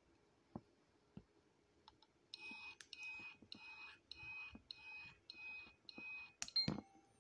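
A run of seven short electronic beeps, a bit under two a second, then a sharp click near the end, the loudest sound.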